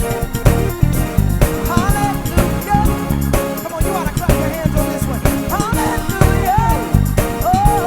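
Gospel band playing: electric bass and drums drive under keys and organ, with a lead melody that slides between notes.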